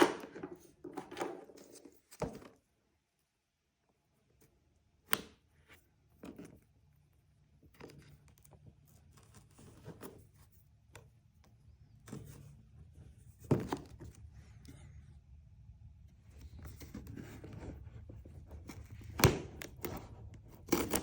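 Scattered knocks, taps and scraping from a cardboard box being handled while a sealing sticker is picked and peeled off it, with two sharper knocks in the second half. A faint low hum sits under much of it.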